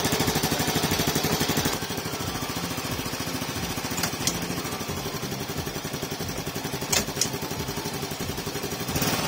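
Honda Super Cub Pro's 110 cc single-cylinder engine running just after start-up, settling to a lower idle about two seconds in. A few sharp clunks come from the heel-toe gear pedal being worked to check the shifting after clutch work.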